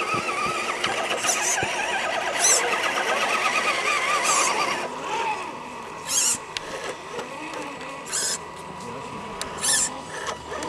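Scale RC crawler's electric motor and gears whining as it creeps over a dirt mound, wavering with the throttle for the first few seconds, then a steadier tone. Short high chirps recur every second or two.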